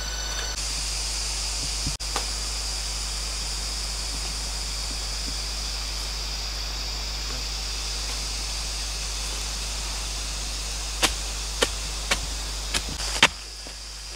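Steady high-pitched drone of forest insects, with about five sharp knocks in the last three seconds as a hand tool chops into the forest floor, the last one the loudest.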